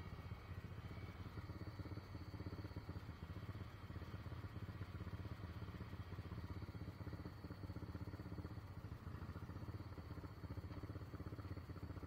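ATV engine running at low, steady revs as the quad rolls slowly along a dirt trail.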